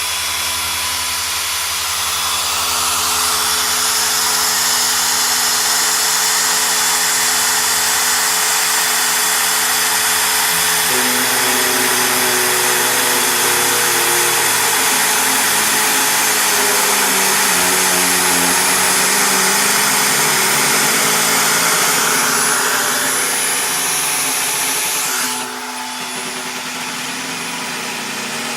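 Home-built CNC machine running on its first run: a steady, loud motor noise with several steady lower tones that change pitch about eleven seconds in, then a slight drop in loudness near the end.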